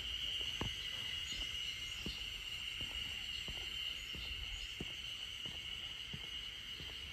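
A steady insect chorus, a continuous high hum, with faint regular footsteps about every two-thirds of a second from someone walking along a wooden boardwalk.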